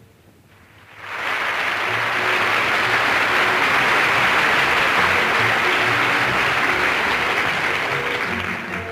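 Theatre audience applauding, starting about a second in and holding steady, with the orchestra coming back in under it near the end.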